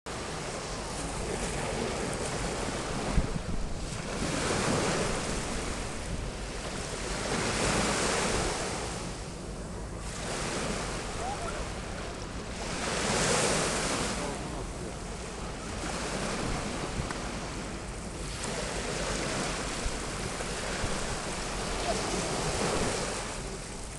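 Small waves breaking and washing up a sandy shore, each wash swelling and fading every few seconds, over a low rumble of wind on the microphone. A single short knock about three seconds in.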